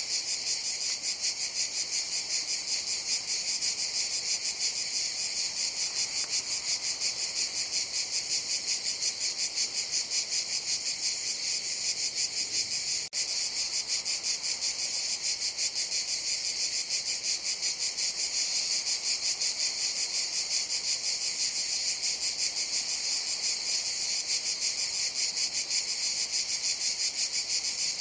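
A chorus of cicadas buzzing: a steady, high-pitched, fast-pulsing drone that keeps up without let-up, apart from a momentary break about halfway through.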